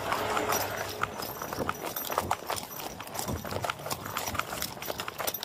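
Running footsteps on pavement, picked up close by a body-worn camera: a quick, uneven patter of boot strikes, several a second.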